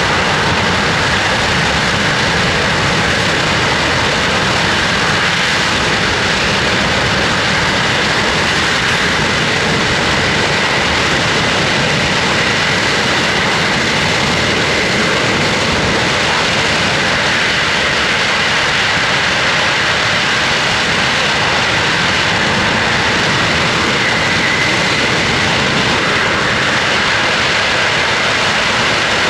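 Boeing C-17 Globemaster III's four Pratt & Whitney F117 turbofan engines running in reverse thrust as the aircraft backs up under its own power: a loud, steady jet noise with a faint high whine held over it.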